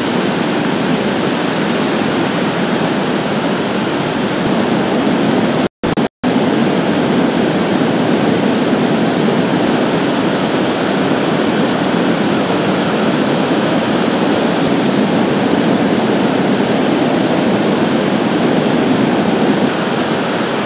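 Flash floodwater rushing, a loud steady noise of moving water. It cuts out twice, very briefly, about six seconds in.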